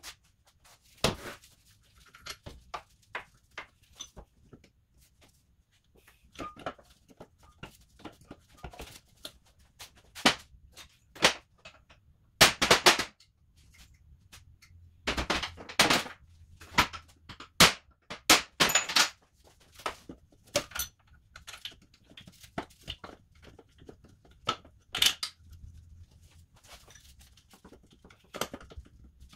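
Irregular metallic clicks, knocks and clatter of hand tools and parts being handled during engine reassembly, with denser runs of clatter a little before and after halfway.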